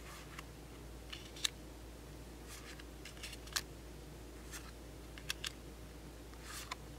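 Pokémon trading cards handled one at a time: soft swishes as cards slide off the stack, with scattered sharp clicks and snaps of card edges, about eight small sounds in all.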